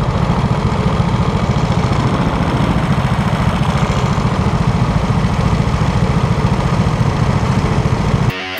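Go-kart engines idling on the starting grid, a steady rumble heard from on board the kart. Near the end it cuts off abruptly into heavy metal music.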